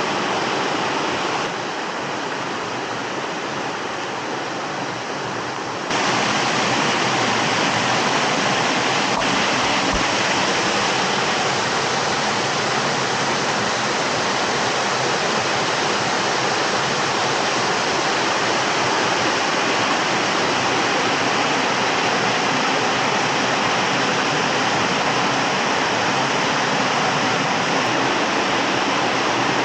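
Rushing water of a small waterfall or cascade on a stream, a steady loud rush. It drops a little about a second and a half in and comes back louder about six seconds in.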